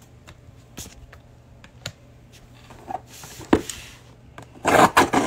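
Trading cards and a cardboard hanger box being handled: a few light taps and clicks, then a louder rustle near the end.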